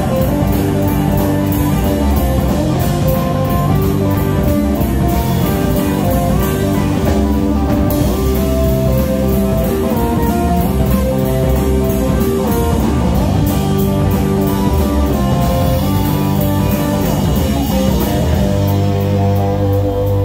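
Live blues-rock band playing an instrumental passage: electric guitar, electric bass and drum kit, with a blues harmonica playing held notes over them.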